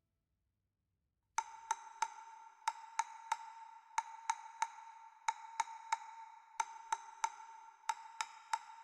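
Quiet electronic music loop that starts after about a second and a half of silence: bright, wood-block-like pings in groups of three, one group about every 1.3 seconds, over a steady high tone.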